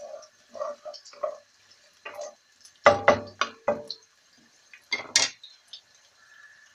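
Wooden spatula stirring garlic and chili flakes in oil in a nonstick wok: a few quick scraping strokes, then a cluster of sharp knocks against the pan about three seconds in, the loudest sounds here, and two more clicks around five seconds.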